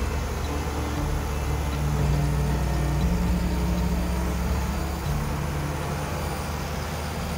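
Crawler bulldozer's diesel engine running as the dozer pushes mud and rubble with its blade; the engine note steps up and down a few times.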